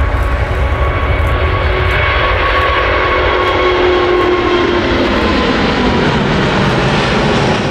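Four-engined Airbus A380 airliner taking off, its jet engines at takeoff thrust: a loud, steady jet roar with a deep rumble and a faint whine running through it. It cuts off suddenly at the end.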